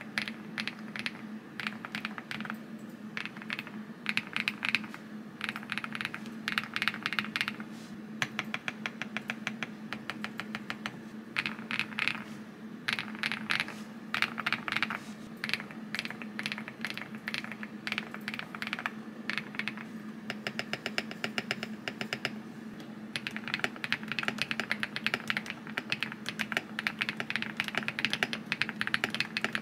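Typing on a QK75N mechanical keyboard built with Neo White linear switches on an FR4 plate, with case foam and Coffee Cat keycaps: fast runs of key clacks in bursts with brief lighter stretches. A faint steady low hum sits underneath.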